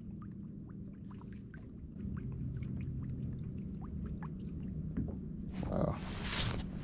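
Small water ticks and lapping against a boat hull over a low steady hum. Near the end comes a brief, louder rushing swish as the fishing rod is swept up to set the hook.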